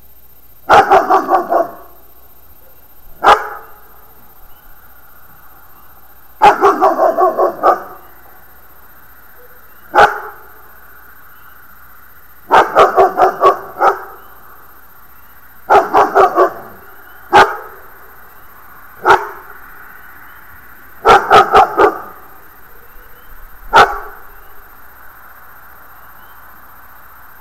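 A dog barking in bouts: quick runs of three to six barks alternate with single barks every few seconds, stopping near the end.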